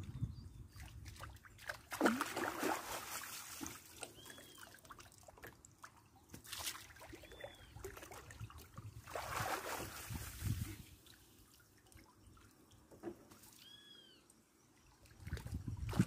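River water sloshing and trickling as a hand sieve is dipped and worked through the shallows by someone wading, in several splashy bouts a few seconds apart.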